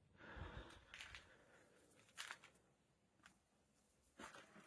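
Faint rustling and handling noises with a short click about two seconds in, then near silence.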